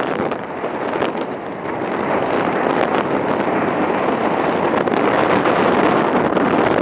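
Strong wind buffeting the microphone, mixed with the rush of ocean surf. It eases briefly about a second and a half in, then builds again.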